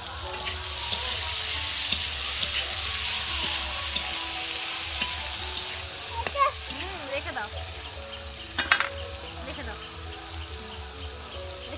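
Potatoes, green beans and carrots sizzling as they fry in hot oil in a steel karahi, with a few clicks of the spatula against the pan. The sizzle is loudest in the first half and dies down toward the end.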